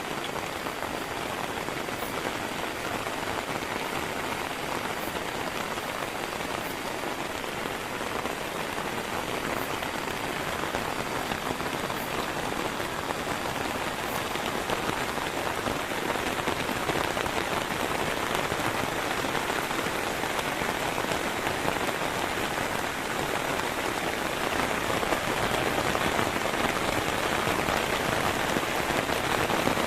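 Heavy rain falling steadily, a dense even hiss, growing a little louder in the second half.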